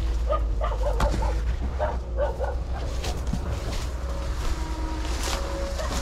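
A dog barking in short yips, in two bursts in the first half, over a steady low rumble.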